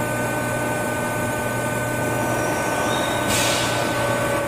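Kitamura vertical machining center running with its spindle turning, a steady machine hum made of several even tones, as the drill moves toward the cast iron part before the cut. A brief hiss comes about three seconds in.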